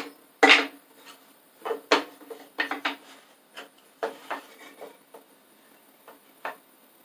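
Cut wooden door-frame pieces being handled and laid together, knocking and clacking against each other and a hard surface in a string of sharp knocks, the loudest about half a second in, with some rubbing of wood on wood between them.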